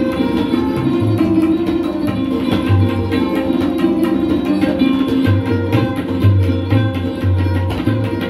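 A tabla solo: rapid strokes on the tabla pair, with deep bayan bass strokes coming thicker in the second half, over a sarod keeping up a steady melodic accompaniment.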